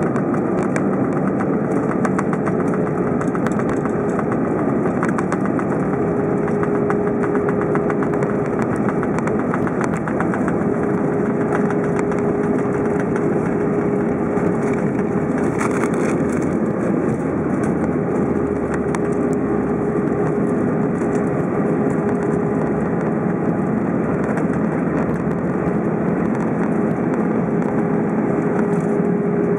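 Airbus A321 jet engines heard from inside the cabin over the wing, running steadily at taxi power as the airliner rolls along the taxiway after landing, with a steady hum.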